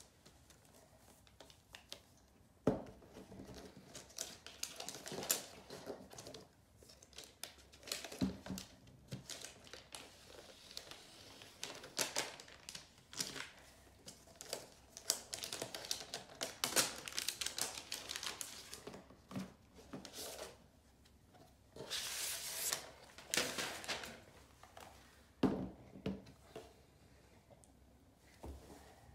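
Unboxing handling noises: paper and plastic packaging rustling and tearing, with scattered irregular clicks and taps from the box and laptop being handled. The longest rustling bursts come about two-thirds of the way through.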